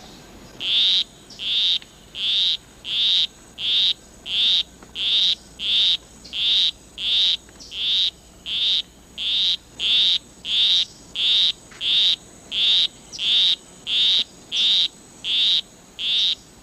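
Male poison arrow frog giving his monotonous courtship song to a female: a long series of short, evenly spaced high-pitched calls, about one and a half a second.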